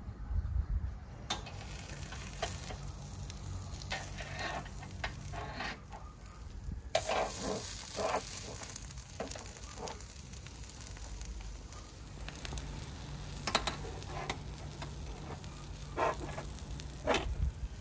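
Skewered chunks of marinated beef tongue sizzling over hot charcoal, a steady hiss broken by scattered sharp clicks and pops.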